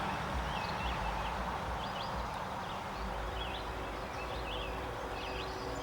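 A small bird chirping repeatedly in short, quick calls, over a steady low outdoor rumble.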